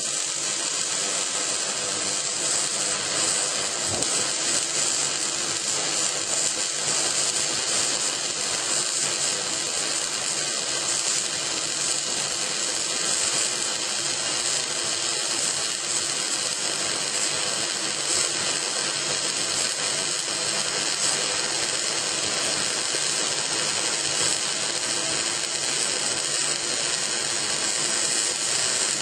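MIG (gas metal arc) welding arc running steadily, a continuous hiss that does not break.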